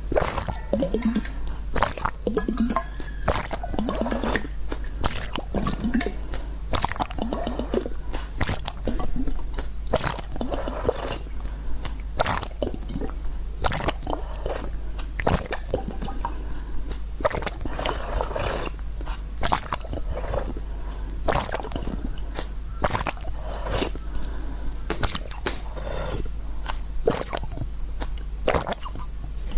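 Close-miked eating: irregular crunching and wet chewing, with squishy mouth sounds.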